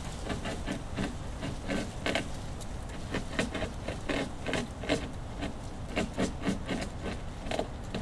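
A beaver gnawing on wood: an irregular series of short bites and scrapes, a few a second.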